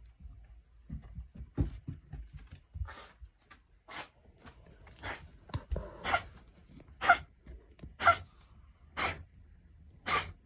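Cat reverse sneezing: a run of sharp, noisy breaths drawn in through the nose, about one a second, after a second or two of low rustling. Reverse sneezing is a harmless physiological reflex.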